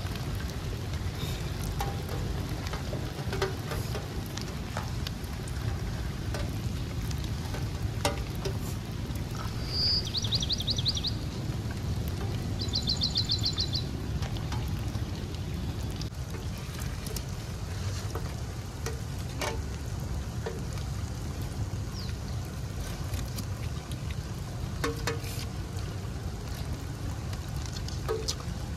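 People eating rice by hand from a large metal plate: scattered small clicks and taps over a steady low outdoor rumble. Twice, about ten and thirteen seconds in, a short rapid high trill.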